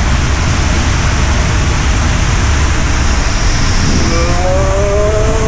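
Water and air rushing in an enclosed tube waterslide as riders slide down it: a loud steady roar. About four seconds in, a person lets out a long rising yell.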